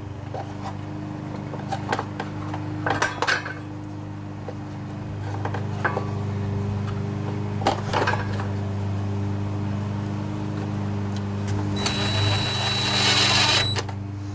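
Plastic engine cover being handled and seated on the engine, making several knocks and rattles, with a steady low hum underneath. Near the end, a cordless drill whirs with a high whine for about two seconds, driving in a cover bolt.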